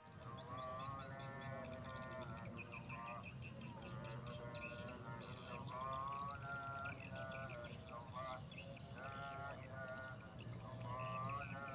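Background music with a wavering melody.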